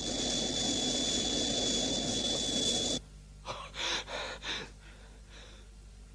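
A steady hissing rush with a thin high held tone, a sci-fi flying sound effect, cuts off suddenly about halfway through. It is followed by a few quick, heavy breaths from people out of breath after running.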